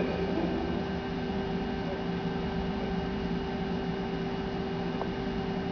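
A steady electrical hum with a constant tone over a background hiss.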